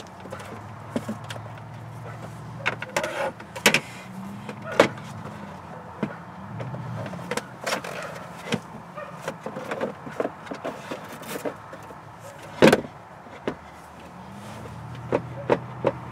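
Knocks, clicks and clatter from a car amplifier and its cables being handled, lifted and turned around in its tray, with one loud knock about two-thirds of the way in. A low hum comes and goes underneath.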